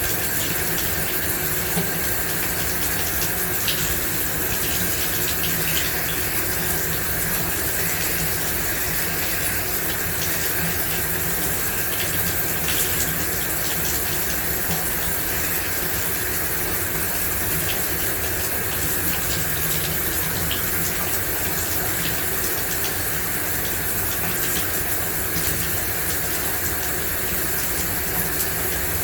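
Shower running steadily, water spraying and splashing with a constant hiss, with faint small drips and ticks scattered through it.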